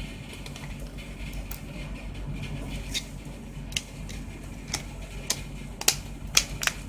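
Sharp plastic clicks and snaps as a removable battery is fitted into a Lenovo Vibe K5 smartphone. There are about eight separate clicks, the loudest in the last couple of seconds, over a steady low hum.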